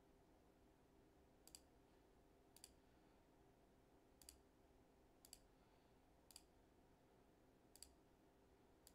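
Faint computer mouse clicks, about seven single clicks at uneven gaps of roughly a second, over a faint steady hum.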